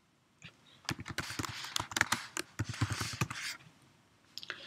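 Typing on a computer keyboard: a quick run of key clicks lasting about two and a half seconds as a short command is typed, then a few more clicks near the end.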